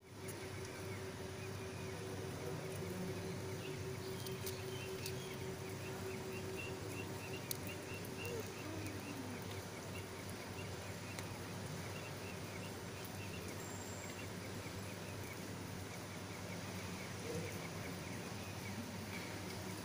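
Outdoor ambience: a steady low hum under a long run of small, quick, high chirps, with a steady low drone through the first several seconds.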